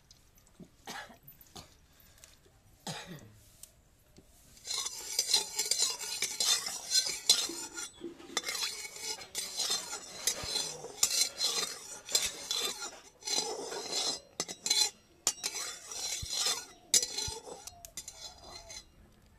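Long metal spatula scraping and clattering against an aluminium kadai as hot cooking oil is worked around the pan, in an irregular run of scrapes that starts about five seconds in after a few soft knocks.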